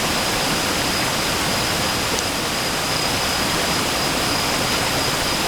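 Small stream rushing steadily over rocks, with a faint thin high tone running through it.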